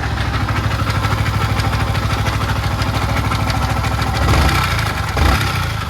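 Yamaha MT-15's single-cylinder engine running at idle with a harsh mechanical noise from the cylinder head, briefly louder twice near the end. The noise is the sign of a damaged camshaft whose bearing has seized.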